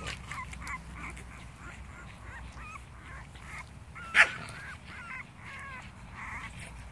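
Two Boston terriers play-wrestling, giving a run of short, high, wavering whines and grunts, with one sharp, loud yelp about four seconds in.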